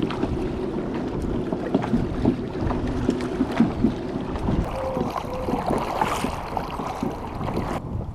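Kayak under way across the water: steady water and hull noise with a low hum, and wind on the microphone.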